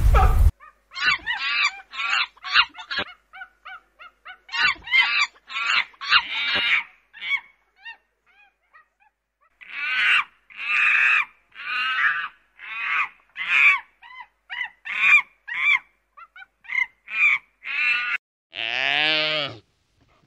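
A goose honking over and over in short runs of calls, with a pause partway through. Near the end there is one longer, lower drawn-out call.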